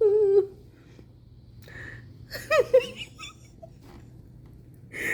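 A woman's wordless nervous vocal sounds: a short held hum at the start and a brief whimpering giggle about two and a half seconds in, with breathing between.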